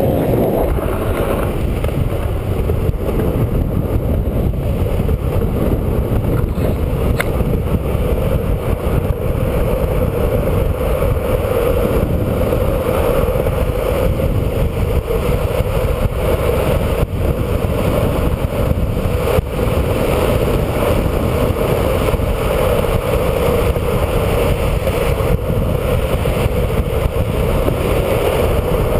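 Longboard's soft urethane wheels (Plasma B+ 78a, 69 mm) rolling fast on asphalt: a steady roar mixed with wind buffeting the pole-mounted camera's microphone, with a few sharp clicks from the board passing over cracks in the road.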